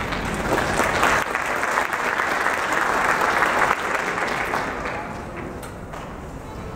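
Audience applauding, a dense patter of many hands clapping that thins out and fades over the last couple of seconds.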